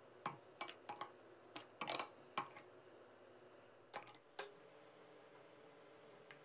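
A serving spoon clicking and scraping against a mixing bowl and a ceramic plate as dressed pork salad is spooned out: a run of light clinks over the first two and a half seconds, then two more about four seconds in.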